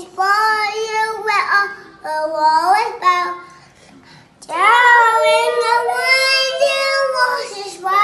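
A toddler boy's voice in long, wordless sung vowels, high-pitched and sliding up and down in pitch. There are several phrases, with a pause in the middle and the longest one near the end.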